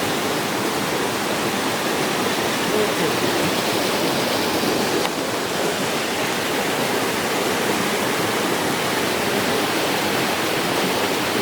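River water rushing steadily as it flows around an obstacle in its course.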